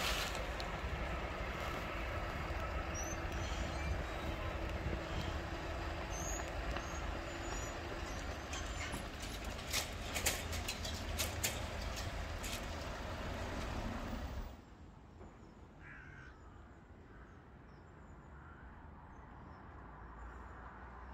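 Manually controlled level-crossing barriers rising after a train has gone by, over a steady low rumble and faint hum, with several clicks and clanks as the booms come upright. About fourteen seconds in, the sound drops sharply to quiet outdoor ambience with a crow cawing.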